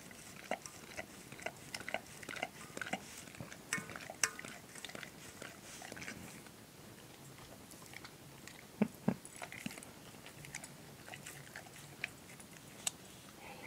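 Dog licking and mouthing the icing off a muffin in a stainless steel bowl: a run of short wet smacking clicks, about two or three a second, over the first few seconds. It goes quieter after that, with a couple of duller knocks a little past the middle.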